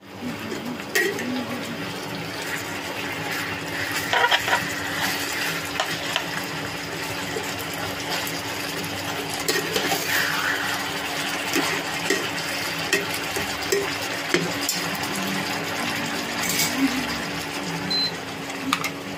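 Chicken pieces sizzling in oil in a nonstick pan, with a slotted spatula scraping and clicking against the pan as it stirs, over a steady low hum. A short high beep comes near the end.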